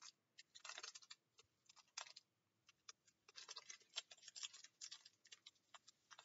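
Faint crinkling and crackling of a foil trading-card pack wrapper being handled and picked at by gloved fingers, in scattered small clicks, as the pack resists opening.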